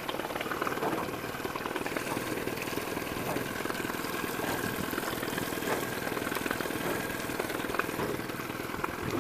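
1996 Mercury 9.9 hp four-stroke outboard motor idling steadily in neutral.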